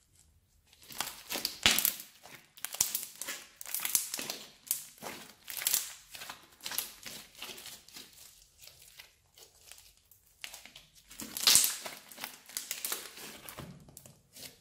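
Thick grey slime being stretched, twisted and folded by hand, giving a string of crackling bursts, loudest about one and a half seconds in and again near twelve seconds.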